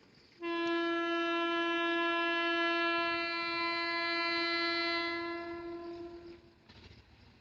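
Indian Railways locomotive horn sounding one long, steady single-note blast of about six seconds, fading out near the end.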